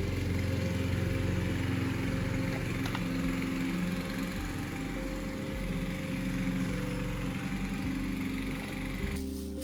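Small petrol lawn mower engine running steadily, cutting off abruptly near the end.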